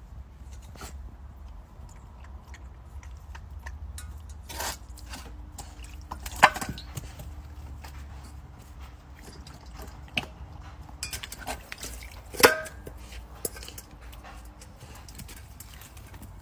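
A puppy knocks and carries a stainless steel bowl on concrete, making scattered clinks and scrapes. Two loud metallic clanks come about six and twelve seconds in, over a steady low rumble.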